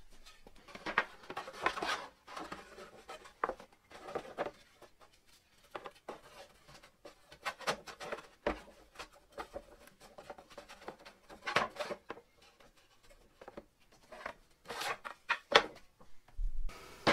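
Wooden sticks and a plywood panel being handled on a wooden workbench: scattered knocks, taps and scrapes of wood on wood, in irregular short clusters, loudest near the end.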